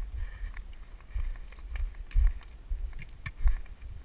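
Irregular low thumps with light rustling and clicks, about one a second, with some wind on the microphone.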